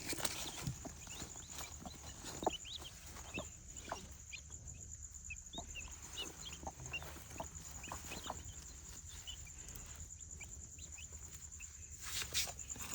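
Newly hatched chukar partridge chicks peeping, many short high chirps scattered through, with a few soft knocks.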